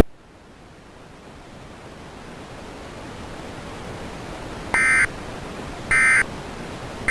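Static hiss slowly rising, then three short buzzy data bursts about a second apart: the Emergency Alert System's end-of-message (EOM) tones that close an alert.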